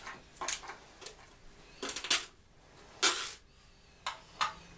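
A handful of short metallic clinks and scrapes from a screwdriver and motor parts being handled on a wooden workbench, the loudest about three seconds in.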